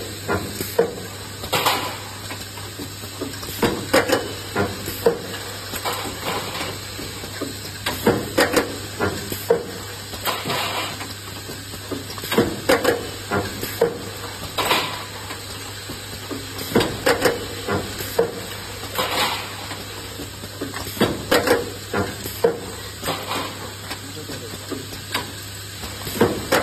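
An automatic handle-clip welding machine cycles while thin tinplate drum lids are loaded and taken out. It gives repeated sharp metallic clanks and clicks in clusters every one to three seconds as the head strikes and the lids clatter. A steady low hum runs underneath.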